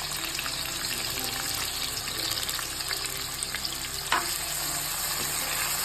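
Sliced onions sizzling in hot oil with whole spices as they fry, a steady hiss, with a sharper knock about four seconds in.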